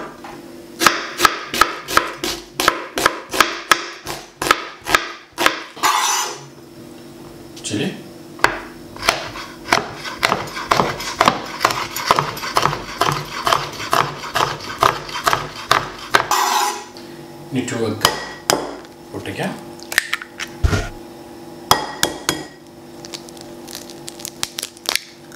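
Kitchen knife chopping red onion and green chillies on a cutting board: quick runs of sharp knocks of the blade on the board, a few a second, broken by short pauses. A faint steady low hum sits underneath.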